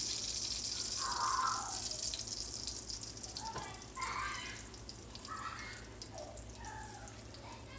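Salmon frying in oil in a pan, its sizzle dying away as the pan cools after the burner is switched off.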